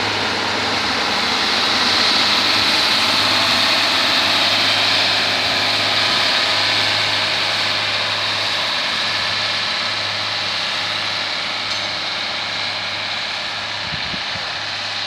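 Diesel engine of a railway track-laying machine running steadily, with a constant low hum under a loud, even hiss. A few low knocks come near the end.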